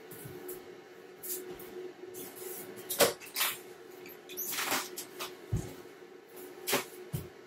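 Scattered clicks, knocks and rustles of small objects being handled and rummaged through, loudest about three seconds in, with a low thump a little later, over a steady low hum.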